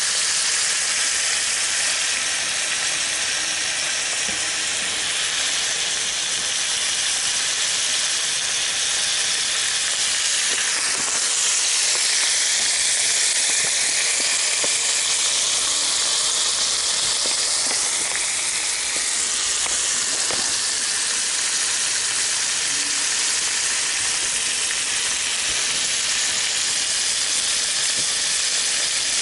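Jurel (horse mackerel) steaks frying in garlic margarine in a pan: a steady sizzling hiss, a little brighter for several seconds in the middle.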